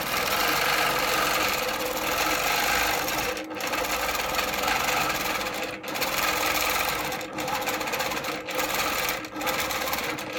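Innova longarm quilting machine stitching steadily as it is hand-guided across a quilt in free-motion quilting. The sound drops out briefly about five times.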